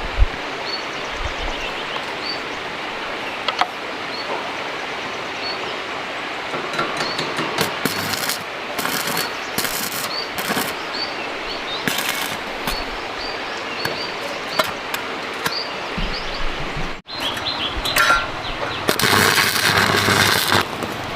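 Steady outdoor rushing noise with a small bird chirping repeatedly, short rising chirps, and several bursts of crackling hiss lasting a second or two each, the longest near the end.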